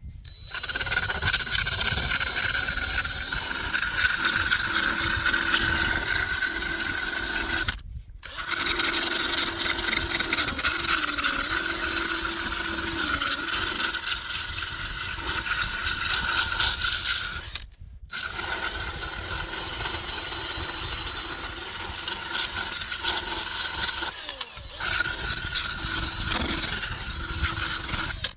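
Power sander running against cured epoxy fiberglass mat, with a steady whine over grinding noise; it breaks off briefly about 8 and 18 seconds in and restarts.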